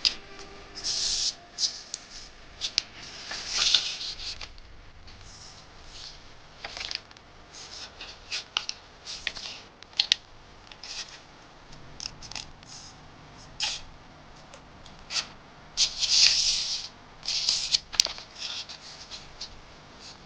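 A sheet of A4 paper being folded and creased by hand, rustling and crackling in irregular short bursts with a few sharp clicks.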